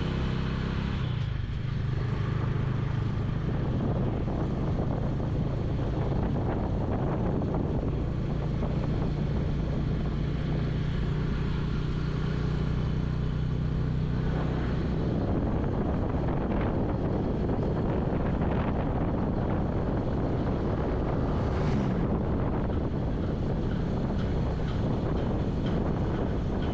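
An engine running steadily with wind buffeting the microphone; the low, even hum gives way to a noisier rushing sound about halfway through.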